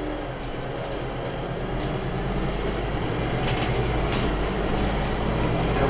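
Cabin noise of a Scania UNVI Urbis 2.5 DD CNG double-decker bus from the upper deck: a steady low drone of the engine and running gear with road noise, growing gradually louder, and a few scattered clicks and rattles.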